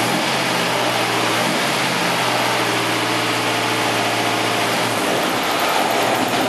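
Rebuilt Studebaker 289 V8 with a four-barrel carburetor, running on an engine dyno. It holds a steady note that changes and fades about five seconds in.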